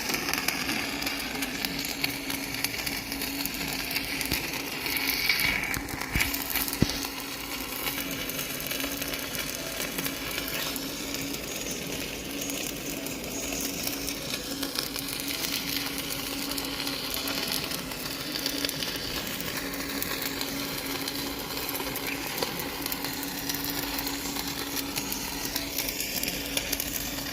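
Stick (manual metal arc) welding arc crackling and sizzling steadily as the electrode rod burns, with a steady low hum underneath.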